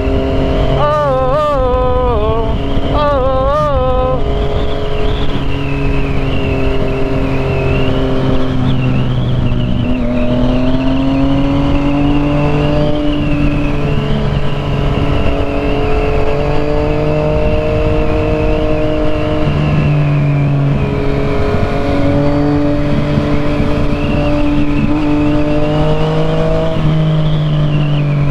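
Yamaha FZ-09's three-cylinder engine running steadily under way, its pitch rising and falling gently with small throttle changes, over a rush of wind noise.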